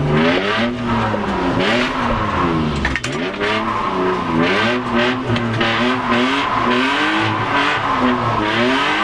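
BMW E36 328's straight-six engine revving up and down repeatedly inside the cabin, the revs rising and falling roughly every second under hard throttle, with bursts of tyre noise.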